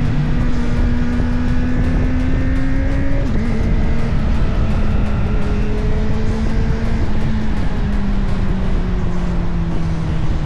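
Kawasaki ZX-6R sport bike's inline-four engine running at sustained revs. Its pitch drifts slowly lower, with a sudden drop about three seconds in.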